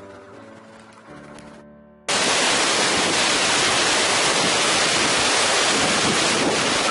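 Quiet background music, then an abrupt cut about two seconds in to the loud, steady rush of hurricane wind tearing through trees and palm fronds.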